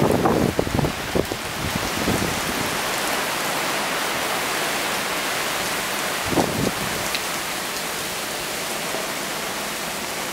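Steady rain falling on the paved plaza and the awning overhead, an even hiss. Wind buffets the microphone in the first couple of seconds, and there is a brief low bump about six and a half seconds in.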